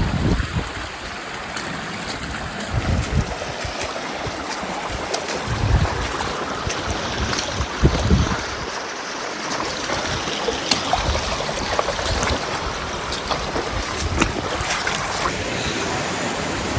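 Wind buffeting the microphone over a steady rush of splashing water, with low gusts every few seconds and a few faint clicks.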